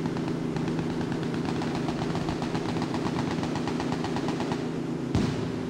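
Engines of riverine patrol boats running at speed, with rapid machine-gun fire of about ten shots a second over them. The firing stops shortly before a single sharp bang near the end, the loudest moment.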